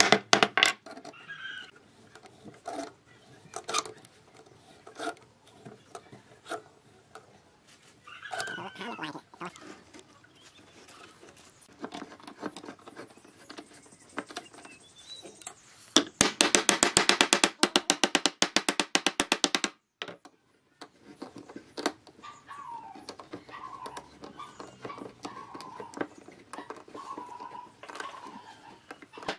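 Hand work on a bundle of thin wooden strips: scattered knocks of a wooden mallet on the wood and clamp. About halfway through comes a few-second run of rapid, even clicks.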